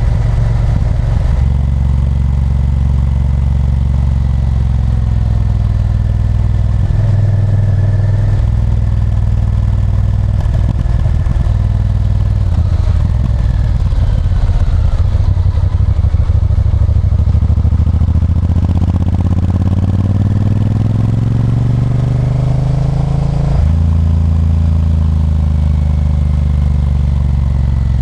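Honda Varadero 1000's V-twin engine running under way, heard from the rider's seat. In the second half it pulls hard with the pitch rising steadily, then drops sharply at a gear change about four-fifths in.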